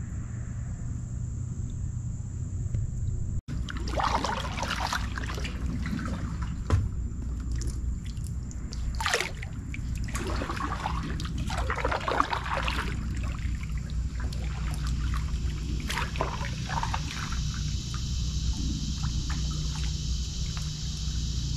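Kayak paddle strokes: the blades dipping and water splashing and trickling off them in uneven spells, over a low steady rumble.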